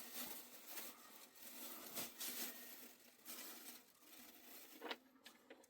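Faint rustling and pattering with many small irregular ticks, and one sharper tick about five seconds in.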